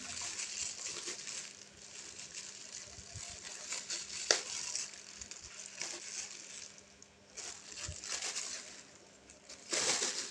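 Plastic packaging rustling and crinkling in handling as a replacement phone screen is unwrapped, with one sharp click about four seconds in and a louder rustle near the end.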